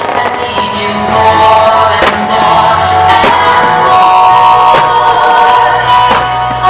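Music with singing accompanying a starmine fireworks display, with about six sharp firework bursts cracking over it.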